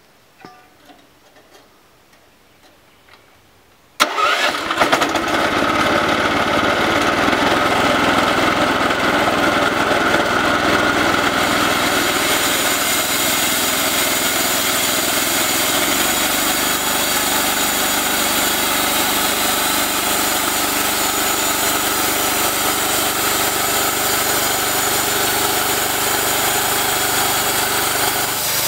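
Small gasoline engine on a bandsaw mill catches suddenly after a few faint clicks, about four seconds in, then runs steadily; its sound grows brighter and hissier about eight seconds after it starts.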